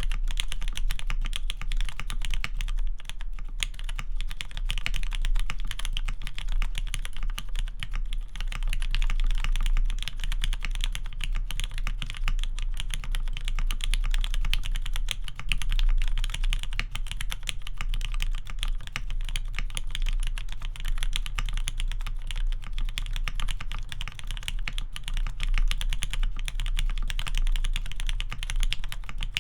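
Continuous fast typing on a custom 60% mechanical keyboard with lubed Cherry MX Black linear switches in a sprung aluminium plate and GMK doubleshot ABS keycaps: a dense, steady stream of key clacks and bottom-outs.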